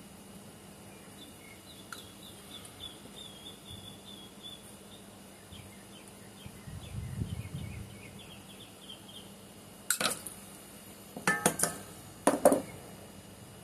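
Hard metal objects clinking and clattering: one sharp knock about ten seconds in, then two quick clusters of clinks near the end, the loudest sounds. Faint high chirping runs underneath for most of the time.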